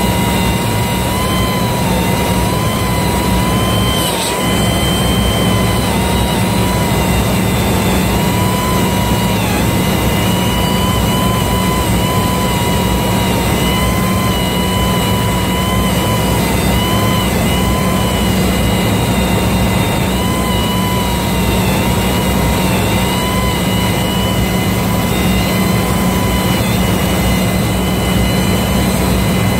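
Electric arc welding on a ship main-engine exhaust valve: a steady, loud hiss of the arc over a constant machine hum, with wavering whines that dip every second or two.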